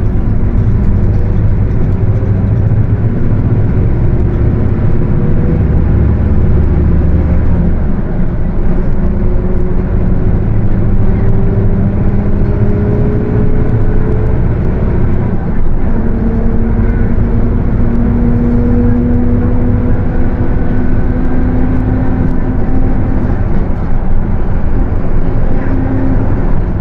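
Mercedes-Benz OF 1721 bus under way: its diesel engine runs with a low drone while a whine from the differential rises slowly with road speed. The whine drops out briefly about halfway through and returns a little higher.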